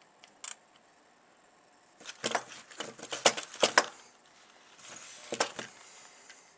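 Electrical arcing from a live 120-volt lead touched against a VCR circuit board: a single snap, then a run of sharp crackles and pops lasting about two seconds, and a shorter burst of crackling near the end.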